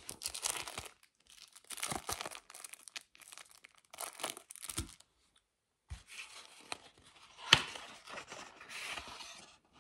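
Crinkling and rustling of a clear plastic sleeve and cardboard inserts being handled, in four bursts, the last one the longest, with a sharp click in it that is the loudest sound.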